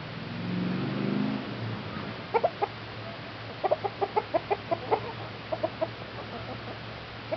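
Chickens clucking: quick runs of short, sharp clucks, three, then about eight evenly spaced, then three more, after a low drawn-out sound in the first second and a half.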